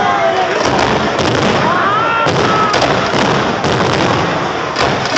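Aerial firework shells bursting in a rapid, continuous barrage of bangs and crackling.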